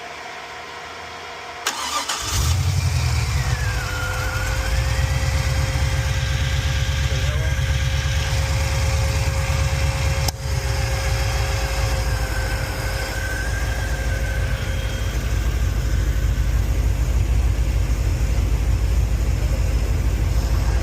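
Monte Carlo SS's rebuilt LS V8 cranked and catching about two seconds in, then settling into a steady loud idle.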